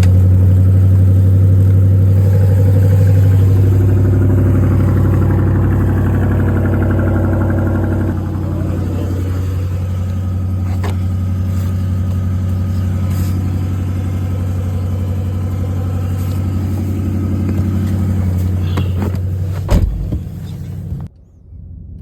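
Ford Mustang engine running at steady revs under throttle, a loud low drone with a few faint clicks over it, cut down sharply near the end.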